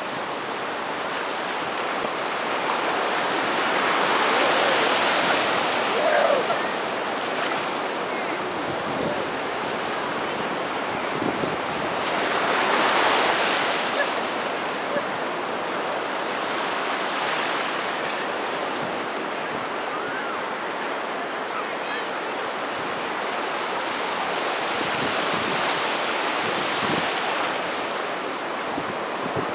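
Surf washing in over a shallow beach, a steady rush of foaming water that swells louder as waves break, most strongly about four and thirteen seconds in.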